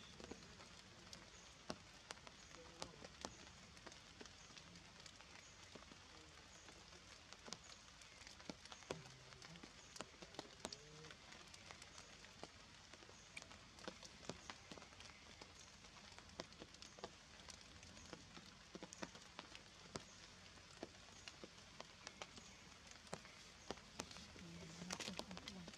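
Faint, irregular pattering of raindrops on forest leaves, over a steady soft hiss.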